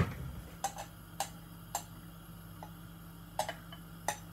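A spoon clicking against a mixing bowl as pancake batter is scraped out into the frying pan. The clicks are short, light and uneven, about eight of them, over a faint steady low hum.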